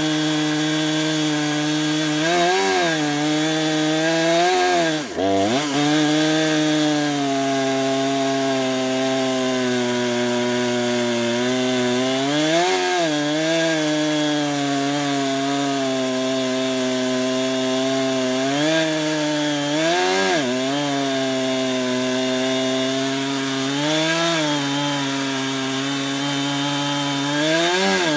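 Husqvarna 455 Rancher two-stroke chainsaw on a chainsaw mill, ripping lengthwise through a soft cedar log with a cross-cut chain. The engine runs steadily under load, its pitch sagging and recovering every few seconds, and dropping sharply about five seconds in before it picks back up.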